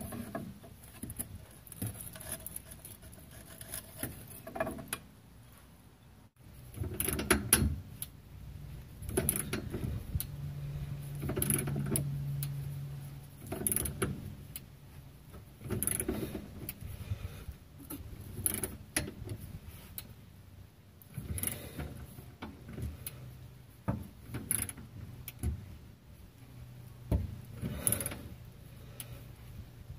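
Hand ratchet wrench with an extension clicking as it turns the lower strut bolt, in repeated strokes with a burst of clicks about every two seconds.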